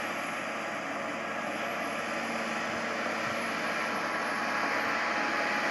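Mount Washington Cog Railway train climbing the grade, its diesel locomotive pushing a passenger coach: a steady rushing engine noise that grows slightly louder.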